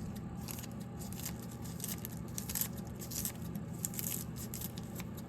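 Light handling noises: soft scattered rustling and small ticks over a steady low hum.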